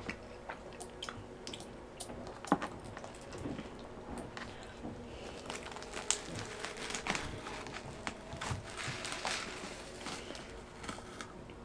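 Fried pizza being picked apart by hand: soft crackles and squishes from the crust and toppings, with light paper rustles and scattered small clicks, the sharpest about two and a half seconds in.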